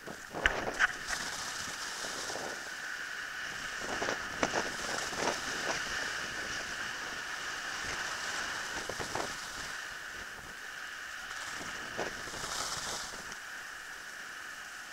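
Skis sliding over snow with a steady hiss, wind on the microphone, and scattered clicks and knocks.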